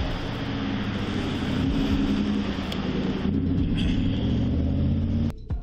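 Road traffic and vehicle engine noise, steady with a low hum underneath, cutting off abruptly near the end.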